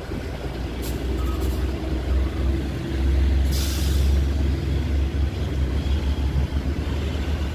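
Diesel engine of an old Mercedes-Benz NG-series truck running with a deep rumble as the truck drives away, louder about three seconds in. A short hiss of air about three and a half seconds in.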